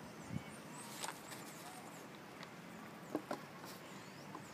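A few soft clicks and rustles of gear being handled in a fabric organizer pouch, with faint high bird chirps in the background.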